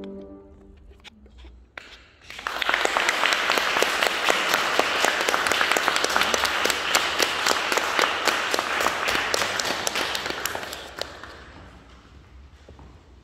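The last held flute-and-piano chord dies away, then an audience breaks into applause about two seconds in; the clapping runs steadily for several seconds and fades out near the end.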